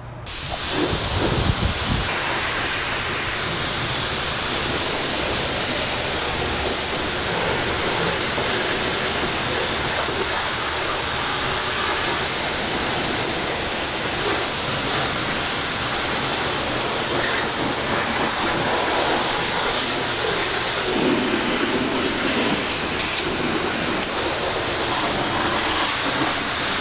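High-pressure water spray from a self-serve car wash wand rinsing a car's engine bay: a steady, loud hiss of water that builds up over the first second and then holds.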